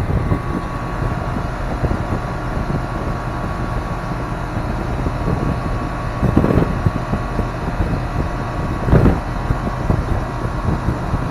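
Ruud 2.5-ton central air conditioner condensing unit running steadily, its compressor and condenser fan running, with two brief louder swells about six and nine seconds in.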